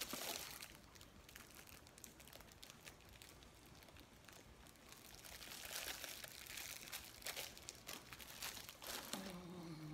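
Clear plastic wrapper of a packaged honey bun crinkling as it is handled and bitten from. The crinkling comes in a burst at the start and again from about halfway on, and a short falling hum of a voice follows near the end.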